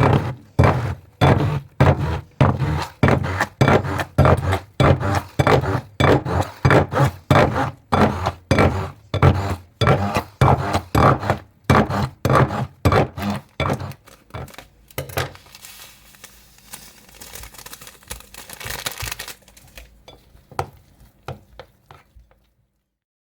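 Mixture being stirred or whisked by hand in a bowl, with a rhythmic scraping and knocking against the bowl about twice a second. After about 14 seconds the stirring stops and a softer, hissing scrape follows for a few seconds before the sound dies away.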